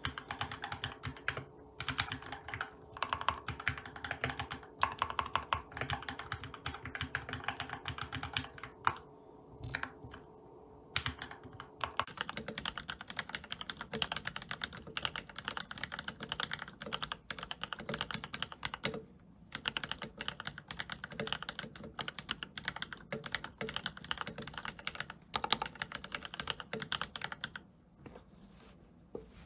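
Typing on mechanical keyboards with lubed Gateron Red linear switches and ABS doubleshot OEM-profile keycaps, with steady, irregular keystrokes. The first board is a Keychron K4 with spray-lubed switches; about twelve seconds in the typing changes to a Keychron K6, whose stems and springs are lubed with Krytox 105.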